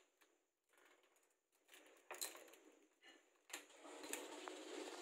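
Faint clicks of a motorcycle's ignition key and switchgear as the ignition is switched on, the last click about three and a half seconds in followed by a faint steady hum.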